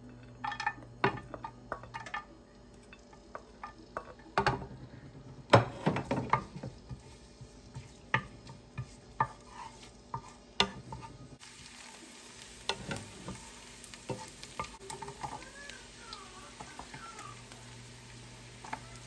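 Garlic sizzling in hot oil in a nonstick frying pan, stirred with a wooden spatula: irregular knocks and scrapes of the spatula against the pan over a steady sizzle, loudest about five seconds in. Chopped onion drops into the pan near the end.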